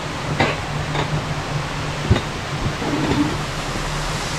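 Mountain coaster sled running on its metal rail while hauled slowly uphill: a steady low hum with a few sharp clicks from the track.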